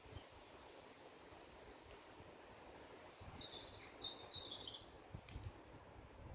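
A songbird sings one rapid, jumbled phrase of high notes lasting about two seconds, starting just under three seconds in, over a faint steady outdoor background hiss.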